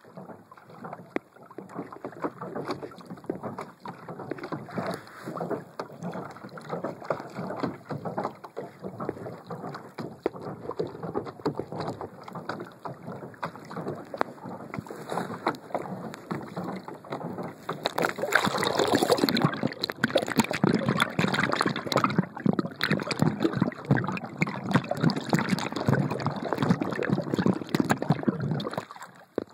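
Lake water splashing and sloshing against a plastic kayak hull as the pedal-driven kayak moves. It gets louder about two-thirds of the way through and stops abruptly near the end.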